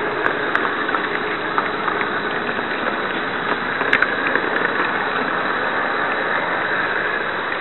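Märklin HO model train running, heard from a micro camera riding on board: a steady rushing rattle with a few short clicks, one sharper about four seconds in.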